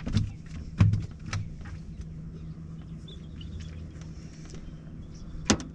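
Steady low hum of a boat motor, with a few sharp knocks: one a second in, two more within the next half second, and another near the end.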